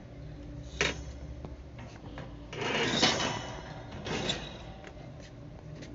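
A sharp knock, then about a second of rattling and clattering, and a shorter rattle a second later: a metal shopping cart and the goods in it being jostled.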